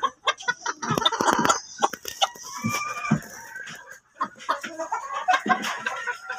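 Several chickens clucking and calling, a busy run of short calls mixed with sharp clicks.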